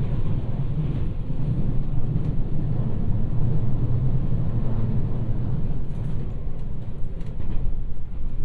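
Running noise heard inside a JR West 223 series electric train car: a steady low rumble of wheels on rails, with a few faint clicks in the last couple of seconds.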